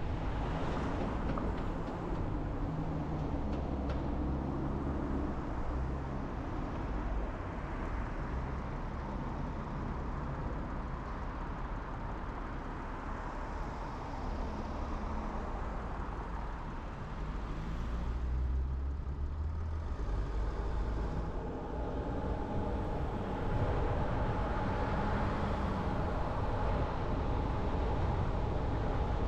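Steady road noise of a car being driven: engine and tyre noise with a faint engine note that shifts in pitch.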